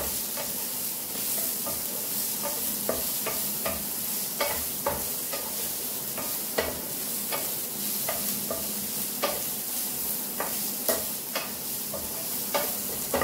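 Sliced cabbage, capsicum and onion sautéing with garlic in hot oil: a steady sizzle, with irregular clicks and scrapes of the spatula stirring against the pan, roughly one or two a second.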